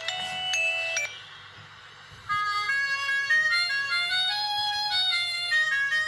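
Ringtones playing through the speaker of an FPT V6512 4G feature phone: one melody stops about a second in, and after a short pause another melody of held electronic notes begins.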